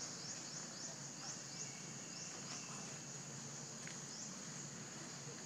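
Outdoor ambience: a steady high insect drone with short, high rising chirps repeating in quick runs of three or four, over a low steady hum.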